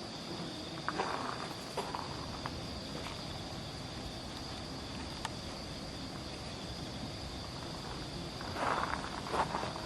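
Night insects singing in a steady, high-pitched drone. Footsteps scuff a few times about a second in and again near the end.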